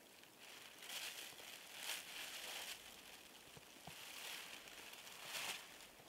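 A plastic bag rustling and crinkling in several short, faint bursts as raw meat is taken out and laid on the snow, with a couple of soft knocks.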